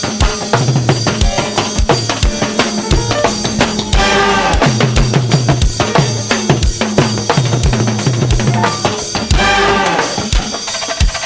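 Live go-go band playing an instrumental groove: a busy drum-kit beat with bass drum and snare over a steady bass line. A melodic line comes in about four seconds in and again near the end.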